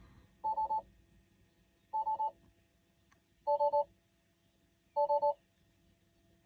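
Electronic alert beeps: quick bursts of about three beeps, each beep two steady tones sounding together. The bursts repeat about every one and a half seconds, four times, with a fifth starting at the very end.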